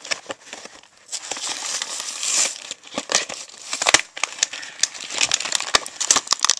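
Toy packaging being opened by hand: irregular crinkling, crackling and tearing, with a denser stretch of rustling about two seconds in.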